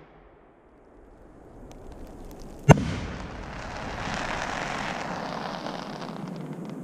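A 4-inch silver crackling coconut firework shell bursts with one sharp, loud bang a little under three seconds in. A few seconds of dense crackling from its silver stars follow, thinning to a few last pops near the end.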